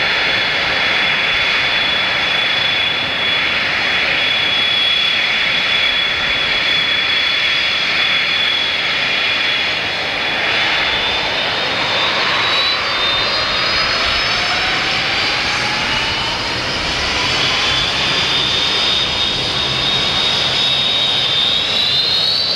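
McDonnell Douglas DC-10-10 jet airliner's General Electric CF6 turbofan engines running at taxi power: a high, steady whine over a loud rushing hiss. Over the second half the whine splits into several tones that climb in pitch as the engines spool up.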